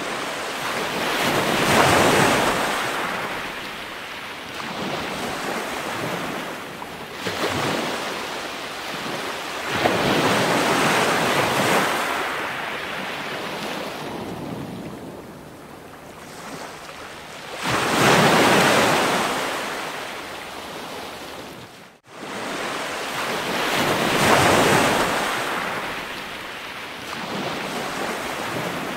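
Ocean surf: waves breaking and washing back in slow swells every several seconds, with a brief break about two-thirds of the way through.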